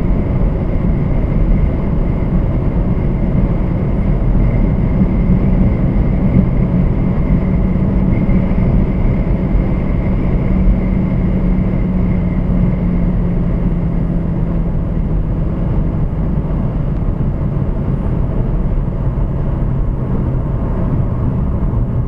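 Alfa Romeo Giulietta QV driving at about 240 km/h, heard inside the cabin: a steady rush of wind and tyre noise under the hum of its 1750 turbocharged four-cylinder. The engine hum fades about two-thirds of the way through as the car slows.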